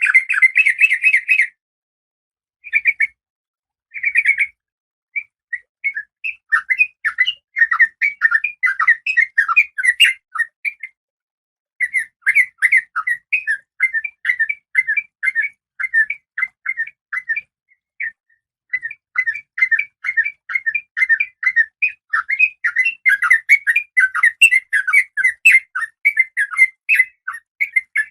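Female Oriental magpie-robin (kacer) giving rapid runs of short chattering chirps, broken by a few brief pauses.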